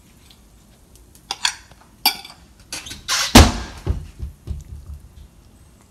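A fork or other cutlery clinking and scraping on a plate in a few short, sharp clicks. Just past halfway comes one loud thump with a brief rush of noise, followed by a few dull knocks.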